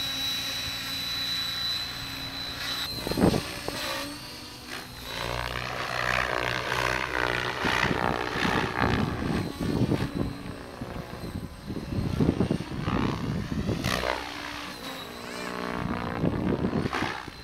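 Electric RC helicopter with a 12S brushless outrunner motor: a steady high whine as it lifts off, then motor whine and rotor noise rising and falling in pitch as it flies about.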